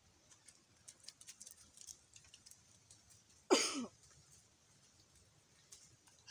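A dog whines once about halfway through, a short cry falling in pitch. Around it come faint clicks and smacks of people eating rice by hand.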